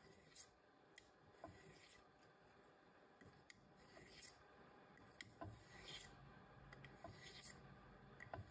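Faint strokes of a 440C stainless straight razor sliding along an 8000-grit whetstone, several short rasping passes a second or more apart with small clicks as the blade is set down and turned. The fine grit is putting a finishing edge on the razor.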